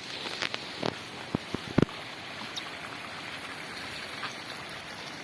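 Steady rush of running water, with several sharp knocks in the first two seconds.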